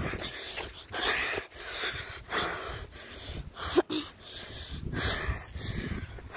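Heavy breathing close to the microphone: a run of hissing breaths in and out, about one a second.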